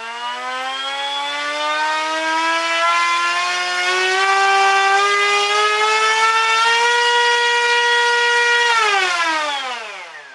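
Turnigy H3126 1300kV brushless motor spinning a 9x4 electric propeller under static thrust test on a 3-cell battery. Its whine rises as it spools up over the first few seconds, holds steady and loud at full throttle, then falls as it is throttled down near the end.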